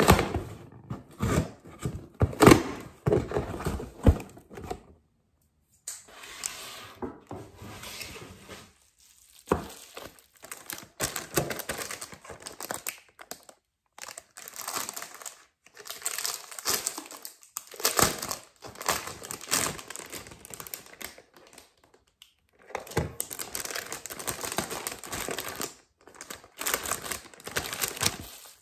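Packaging being handled while a cardboard box is unboxed: tape is cut and torn from the box, and plastic wrapping and bubble wrap crinkle and rustle as the items are unwrapped. The sound is irregular, with a few brief silent breaks.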